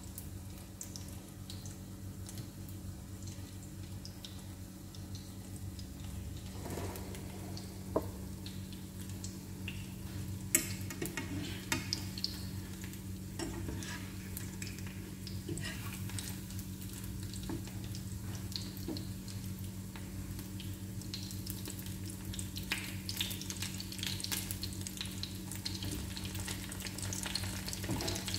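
Chicken patties frying in a pan with a steady sizzle, with scattered clicks and scrapes of a fork and tongs against the pan as they are turned. A steady low hum runs underneath.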